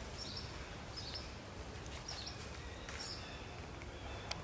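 Short high bird chirps about once a second over a steady low outdoor rumble, with a single sharp click near the end.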